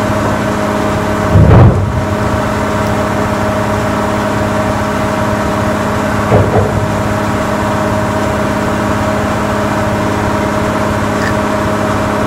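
A steady machine-like hum holding one constant pitch, like a motor or engine running nearby. A loud low knock about a second and a half in and a few softer knocks around six seconds in come from the camera and tripod being handled close to the microphone.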